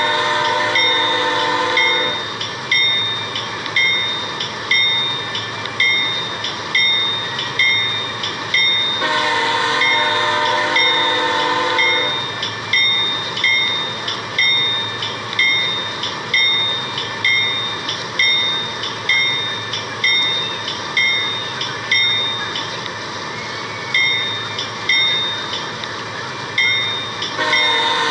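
Train horn sounding long chord blasts, one at the start, one about nine seconds in lasting about three seconds, and another starting near the end, over a bell ringing steadily a little faster than once a second.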